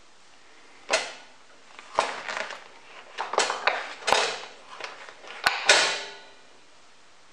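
A crosscut fence of aluminium extrusion and plywood being set down and settled onto a plastic bathroom scale: a string of knocks and clatters, the first about a second in and the loudest near the end.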